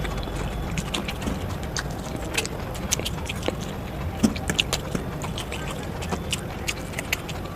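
Eating sounds: irregular sharp clicks and crunches of chewing, several a second, over a steady low background rumble.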